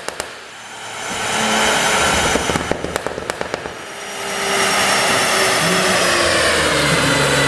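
Audi A7 55 TFSI's turbocharged V6 revving, with a rapid string of crackling pops from the exhaust about three seconds in, the pops of a pop-and-crackle tune on the overrun. It then runs at high revs, its pitch slowly falling.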